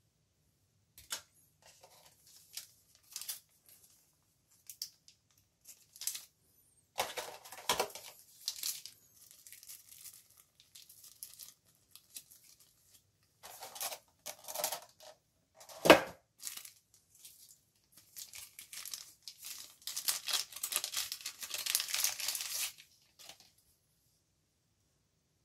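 Thin plastic packaging bags crinkling and rustling as they are handled and pulled open, in irregular bursts with the densest crinkling near the end. A single sharp knock about sixteen seconds in is the loudest sound.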